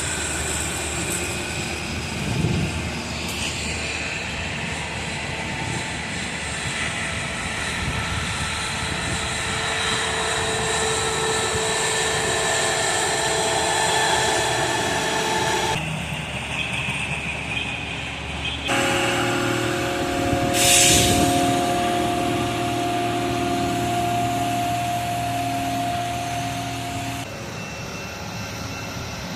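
Railroad maintenance-of-way machines running, a steady mechanical drone with held engine and whine tones. The sound shifts abruptly several times, with a brief hissing burst about 21 seconds in.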